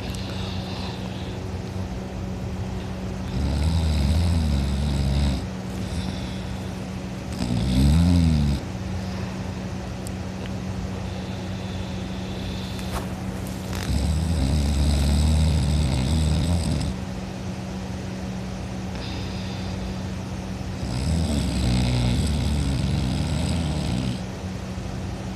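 A person snoring: four snores, each one to three seconds long and several seconds apart, over a steady low hum.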